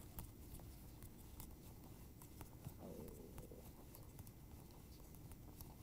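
Faint, scattered light clicks of double-pointed knitting needles as stitches of a sock are knitted by hand, over quiet room tone.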